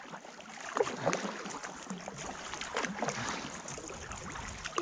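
Kayak paddle blades dipping into calm canal water, with irregular small splashes and drips as they stroke and lift out.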